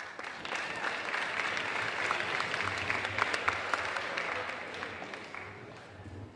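Audience applauding: many people clapping at once, building up during the first second and dying away near the end.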